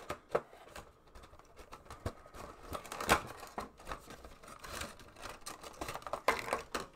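Cardboard Funko Pop box and its clear plastic insert being handled as the vinyl figure is pulled out: irregular rustling, crinkling and scraping with scattered clicks, sharpest about three seconds in and again near the end.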